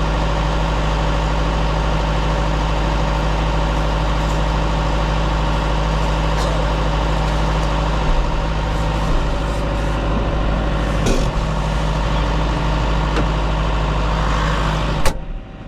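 Farm tractor engine running steadily under a loud low drone, with a few short knocks and rattles. Near the end, a sharp click and the engine sound drops away abruptly.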